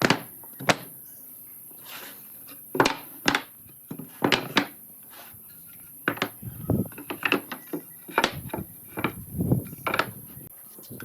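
Irregular knocks and clatter of boards and tools being handled on a workbench, some strikes coming in quick pairs.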